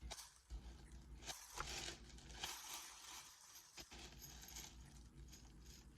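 Faint rustling and a few light clicks from clothing and other items being handled, over a low steady hum.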